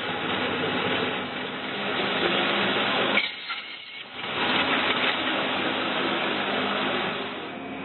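Duct-forming machine for semi-rigid corrugated metal air ducts running, a steady mechanical whirring hum as it feeds the metal strip and forms the duct. The sound drops away for about a second around three seconds in.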